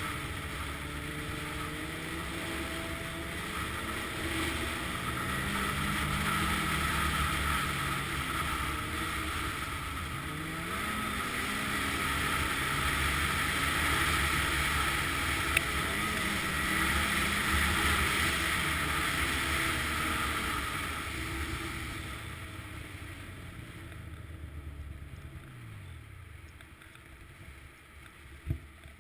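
Snowmobile engine running under way, its pitch rising and falling with the throttle, with wind noise on the microphone. It eases off and gets quieter over the last several seconds, with a single sharp knock near the end.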